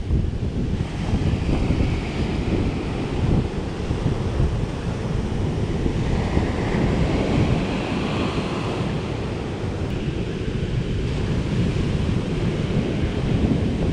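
Wind buffeting the microphone over the steady wash of surf breaking and running up a sandy beach.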